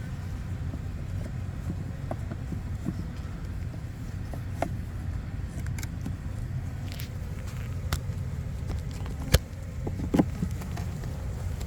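Wooden hive frames and a hive tool being handled, giving a few sharp clicks and knocks over a steady low rumble; the loudest knock comes about two-thirds of the way through.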